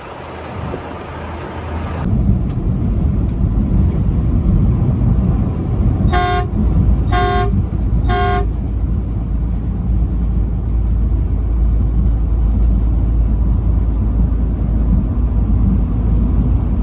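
Truck horn sounding three short blasts about a second apart, over a steady low rumble of the moving truck that starts abruptly about two seconds in, after a hiss.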